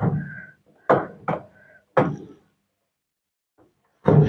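Four hard knocks and thuds within about two seconds, some with a brief ring, then another near the end, as the drum of an LG top-load washing machine is set back down into its cabinet.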